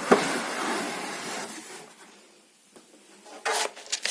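Packaging being pulled open and slid out during an unboxing: a scraping rustle lasting about two seconds, then a few short knocks and rustles near the end.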